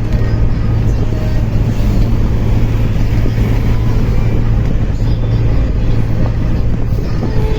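Steady engine hum and road rumble of a moving vehicle, heard from on board.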